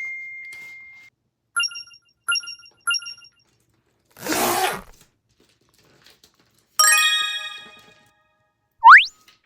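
A string of cartoon sound effects: a ding fading out, three quick pitched blips, a short whoosh about four seconds in, a bright many-toned chime ringing out from about seven seconds, and a fast rising whistle near the end.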